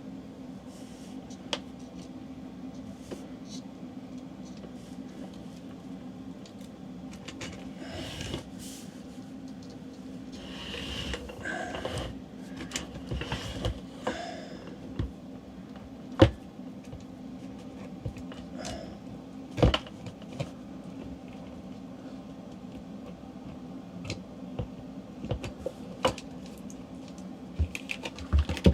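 Scattered clicks and knocks of hand tools and metal parts being handled, with a noisier rustling stretch in the middle and two sharper knocks past the middle, over a steady low hum.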